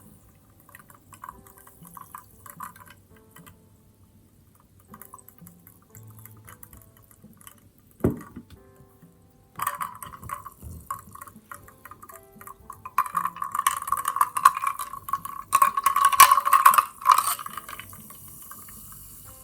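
Mitsuya Cider, a carbonated soft drink, fizzing with a fine crackle of popping bubbles. One sharp knock comes about 8 seconds in. Then the cider is poured into a glass for several seconds, louder toward the end of the pour, and the pour stops abruptly.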